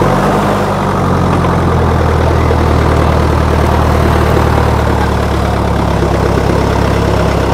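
A heavy engine idling steadily, its pitch lifting slightly for a moment about half a second in.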